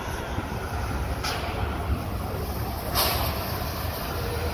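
Steam tank locomotive moving slowly, with a hissing exhaust beat about every two seconds over a steady low rumble.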